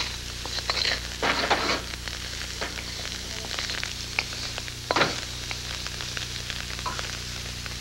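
Diced carrots and celery sizzling in hot safflower oil in a wok over high heat, stirred with a wooden spatula that scrapes and clacks against the metal, most loudly about a second in and again around five seconds.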